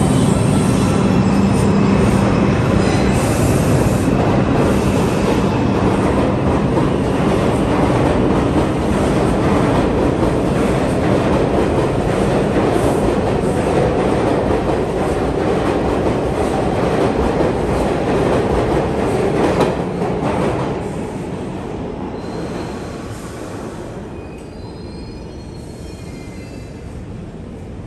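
New York City subway 2 train running past along the platform: loud steady wheel-on-rail and motor noise with squealing wheels. The noise drops away about twenty seconds in as the last car passes, leaving fainter high squeals from the train further down the platform near the end.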